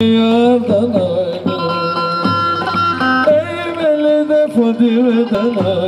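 Live Turkish folk dance music from a davul drum and an electronic keyboard: an ornamented melody with wavering held notes over a steady low bass, with davul strokes.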